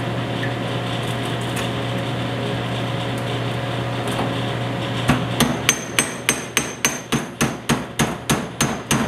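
Ball-peen hammer tapping a steel rod into the belt-tensioner housing of a Delta 31-735 belt/disc sander, metal on metal, installing a part. The light ringing taps start about five seconds in and come a little over three a second, over a steady low hum.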